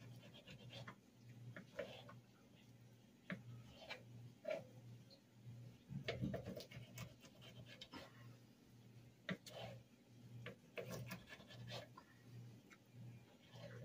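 Faint, irregular taps and scrapes of a knife slicing raw deer heart against a plastic cutting board.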